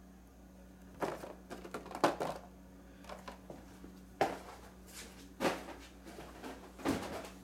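Carded action figures being handled: several short clicks and crinkles of the plastic blister and cardboard backing as one card is taken away and the next picked up, over a low steady hum.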